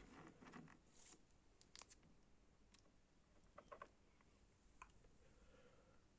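Near silence broken by a few faint, scattered clicks and taps.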